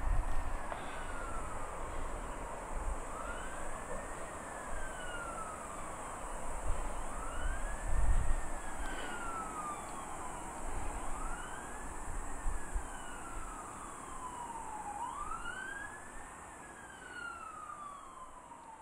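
A siren wailing, one slow cycle about every four seconds: each rises quickly and slides down slowly, with low rumbles now and then, the loudest about eight seconds in. It all fades out near the end.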